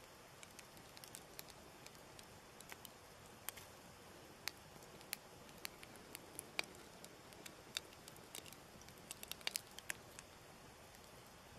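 Faint irregular crackling: scattered sharp clicks and pops over a low steady hiss.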